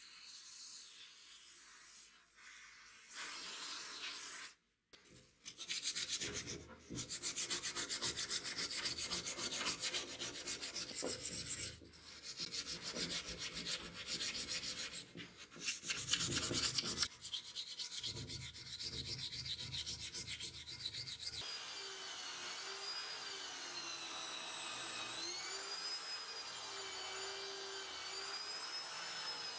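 Aerosol lubricant hissing briefly onto a metal sword guard, then sandpaper rubbed over the metal by hand in quick back-and-forth strokes. Near the end a buffing wheel spins with a whine whose pitch wavers up and down as the piece is pressed against it.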